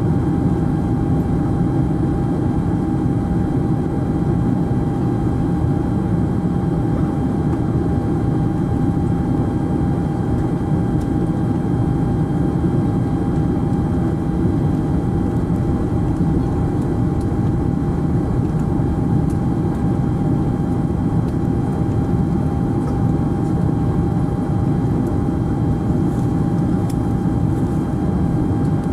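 Steady in-flight cabin noise of a Boeing 747SP airliner heard from inside the cabin: a deep, even rumble of engines and airflow with a faint steady hum above it.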